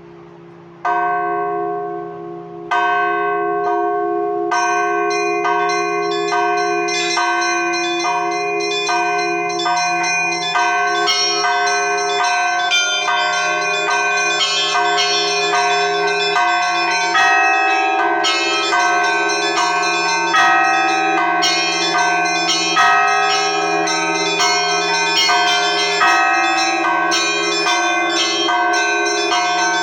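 Russian Orthodox church bells ringing for the late Liturgy. Two single strokes come about a second and three seconds in, then the set of bells breaks into a continuous rapid peal, small bells struck several times a second over the long hum of a deep bell.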